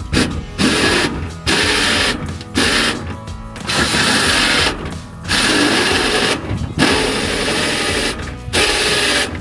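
Power tool running in short bursts of about a second each, starting and stopping abruptly, while working through the wall for the mini-split line set.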